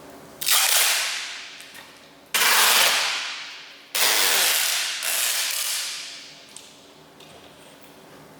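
Clear tape being pulled off its roll in three long pulls, each a loud rasping rip that starts suddenly and fades away over a second or two.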